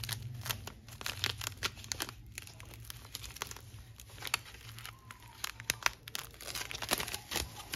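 Clear plastic wrap being picked at and peeled off a battery-management-system circuit board, giving irregular crinkling and crackling with sharp tearing snaps.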